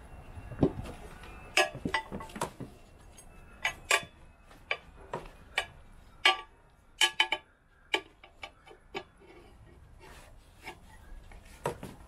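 Irregular metallic clinks, taps and scrapes of tyre tools against a motorcycle's alloy wheel rim as the tyre bead is worked over the rim by hand, coming in quick clusters and thinning out after about eight seconds.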